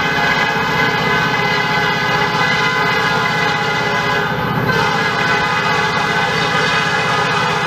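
Diesel locomotive air horn held in one long, steady blast over the low rumble of the passing train.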